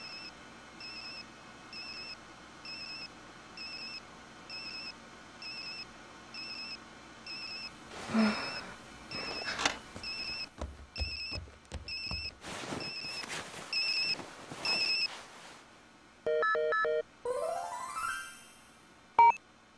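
Electronic beeping, one short high warbling tone about every second, then a short electronic chime, a rising electronic sweep and a sharp click near the end.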